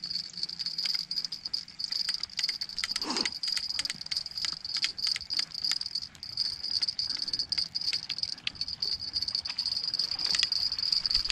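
Insects trilling in a steady, high-pitched chorus, with scattered sharp clicks and rattles over it.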